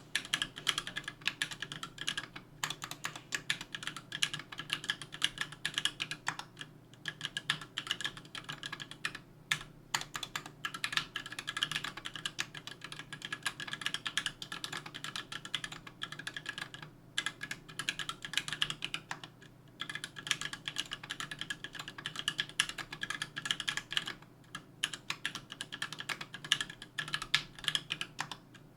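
Continuous fast typing on a 60% aluminium mechanical keyboard with JWK H1 linear switches, an aluminium plate and GMK keycaps: a dense run of keystroke clacks with a few short pauses.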